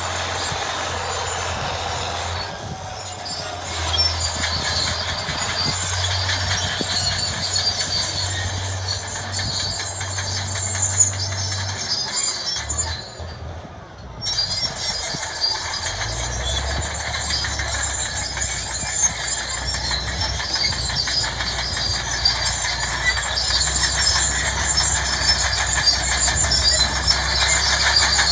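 Crawler tractor's engine running steadily under load as it pulls a deep plow, with the steel tracks clattering and squealing. About halfway through, the sound dips briefly, and the engine drone then comes back lower in pitch.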